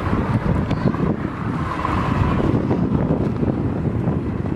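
Wind blowing across the microphone: a dense, low buffeting noise that flickers in level without letting up.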